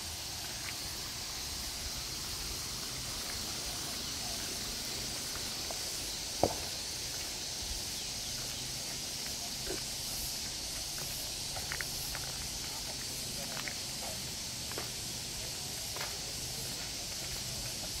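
Steady high-pitched hiss of countryside outdoor ambience, with light, scattered footstep taps and one sharp click about six seconds in.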